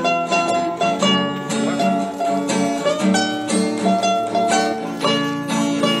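Instrumental background music led by a plucked string instrument playing a quick run of notes.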